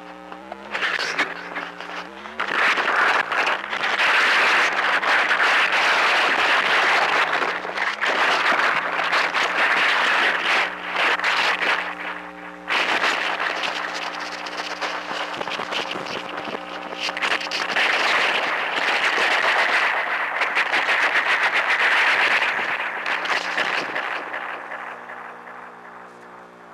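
Harsh noise music: a shaken Krackatone noise-maker played through distortion and ring modulation, a dense crackling hiss over steady droning tones. It swells and dips, drops suddenly about halfway through, and fades away near the end.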